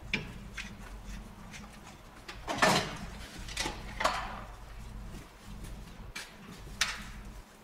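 About five separate knocks and clicks of hand work, such as tools on metal, the loudest about two and a half seconds in, over a low steady hum.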